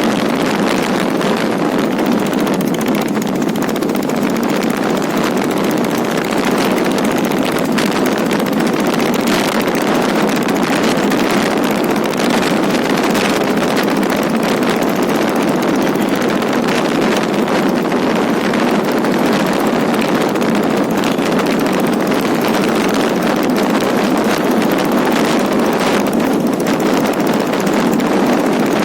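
Royal Enfield Taurus motorcycle's single-cylinder diesel engine running steadily on the move.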